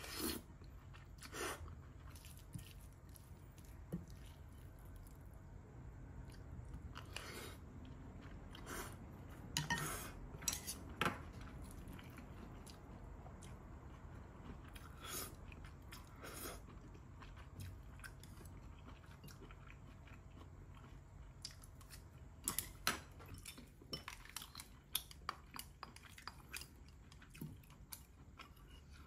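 Close-up eating sounds: chewing a mouthful of japchae rice (glass noodles and rice), with scattered light taps and clinks of chopsticks and a wooden spoon against a ceramic plate, several in quick succession around ten seconds in and again after about twenty-two seconds.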